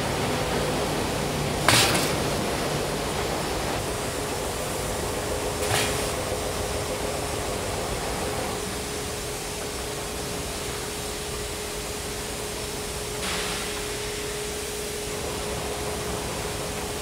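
Steady industrial hall ambience of machinery hum and noise, with a faint steady tone joining a few seconds in. A sharp metallic clank sounds about two seconds in and a softer one around six seconds, and a hiss lasting about a second and a half comes later.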